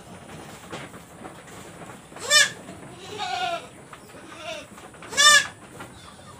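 A goat screaming in pain from an injection of a stinging cough-and-flu medicine: two loud, short bleating cries about three seconds apart, with weaker calls between them.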